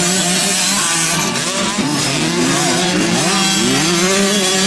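Several small two-stroke youth motocross bikes revving at once, their engine notes rising and falling and overlapping, with one held at a steadier pitch underneath.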